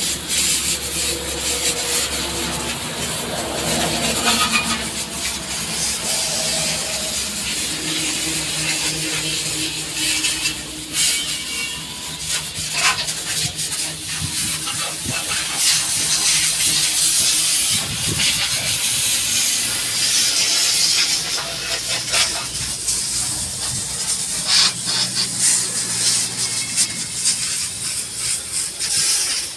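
Steady hiss of a high-pressure water spray washing a truck, with scattered knocks and scrubbing.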